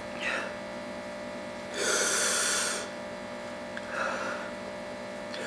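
A man breathing hard against the burn of very spicy noodles: one loud, hissing breath about two seconds in, lasting about a second, with softer short breaths before and after it. A faint steady electrical hum runs underneath.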